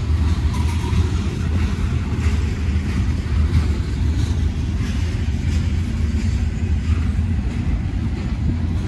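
Train passing: a steady, loud low rumble with faint scattered clicks above it.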